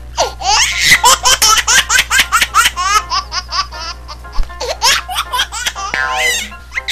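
High-pitched laughter in a fast string of short laughs, about six a second, with a second run near the end, over a steady low hum.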